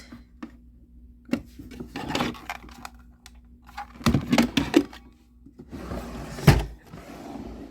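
Handling of craft punches and their storage bins or drawers: a series of knocks and clunks, then a sliding, rustling stretch with one sharp, loudest thunk about six and a half seconds in.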